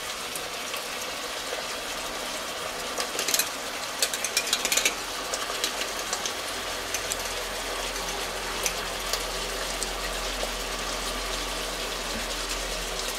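Clicking and ratcheting of a hand tube squeezer wringing out a tube of paprika-tomato paste: a cluster of clicks about three to five seconds in, then scattered ticks. Under it runs the steady sizzle of chicken frying in a cast-iron pot.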